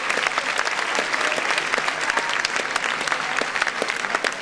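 A large seated audience of students clapping: dense, continuous applause.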